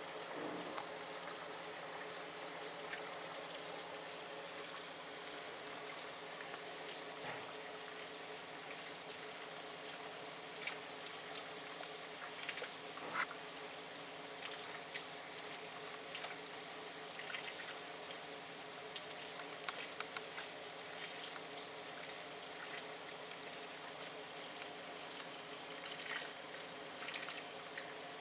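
Steady rain falling, with water running and splashing on the street and scattered sharper drips close by.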